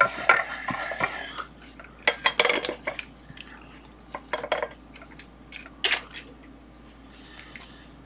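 Light metallic clinks and clatter of hand tools being handled and set down on the workbench, among them a soldering iron going back into its metal stand. A few clicks come in the first second, a cluster about two seconds in, and one sharper clink near six seconds.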